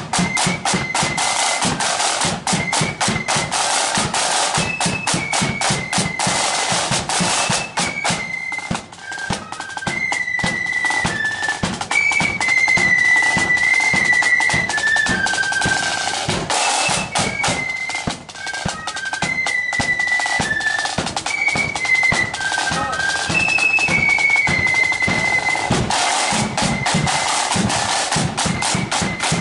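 Marching flute band playing: snare drums rattling and a bass drum beating under a high flute melody. The drumming is densest at the start and end, and the flute tune stands out most clearly in the middle.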